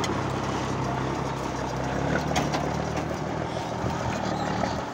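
Engine of a 6x6 military cargo truck running steadily at low speed, with a few faint knocks.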